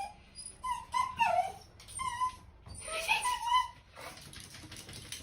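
A dog whining in three short, wavering bouts.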